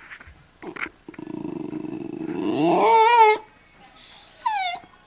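Dog whining: a long call that starts low and rough and rises into a drawn-out, howling whine, then a shorter high whine that falls in pitch. The dog is worked up by a cat it sees outside the window.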